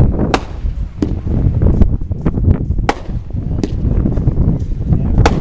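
Boomville consumer fireworks going off: a string of separate sharp bangs, about five, spaced a second or so apart, with the loudest near the end, over a steady low rumble.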